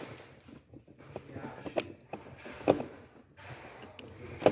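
Scattered clicks and knocks of hand work on a car's dashboard radio trim: plastic trim parts and small screws being handled and fitted, a few sharp clicks with quiet gaps between, the sharpest near the end.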